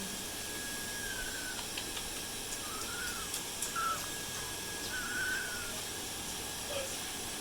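Baby African grey parrot giving about five soft, short whistles, each rising and falling in pitch, spaced a second or so apart, over a steady background hiss.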